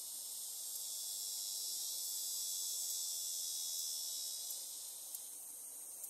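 Cicadas buzzing in a steady high-pitched drone that swells toward the middle and fades off about five seconds in, with a few faint ticks near the end.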